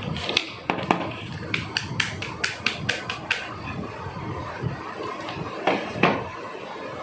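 Light taps and clicks of plastic cups and a tray knocking on a table while cocopeat is packed into the cups, including a quick run of about four taps a second, then two louder knocks about six seconds in.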